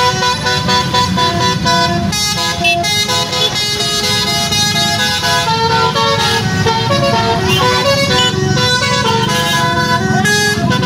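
Basuri (telolet) multi-tone bus horn on a Sanjaya Trans bus playing a tune of short held notes that step from pitch to pitch, over a steady low rumble of traffic.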